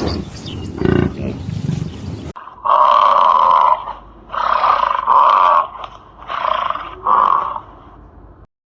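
Animal calls: low, rough grunting for the first two seconds or so, then after an abrupt cut a series of five loud calls, each lasting under a second to about a second.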